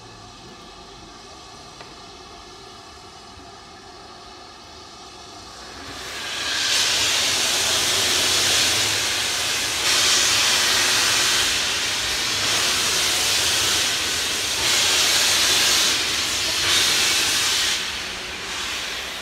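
Steam locomotive (Southern Railway S15 No. 825, a two-cylinder 4-6-0) letting off steam with a loud hiss that rises about six seconds in, swells and dips several times, and eases off near the end. The low white cloud billowing along the track is typical of open cylinder drain cocks. Before the hiss, a faint steady tone.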